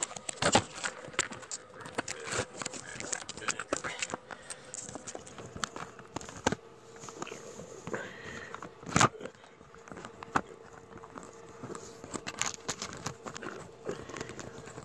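Dense crackling and scattered clicks over a faint steady hum, with one sharp, loud click about nine seconds in.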